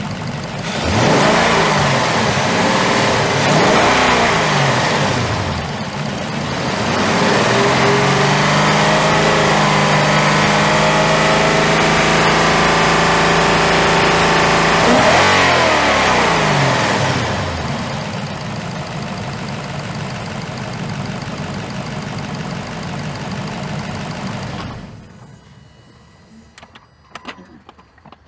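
Car engine, heard from the open engine bay, revved twice briefly, then held at higher revs for several seconds before dropping back to idle. It idles for a while, then stops about 25 seconds in, followed by a few faint clicks.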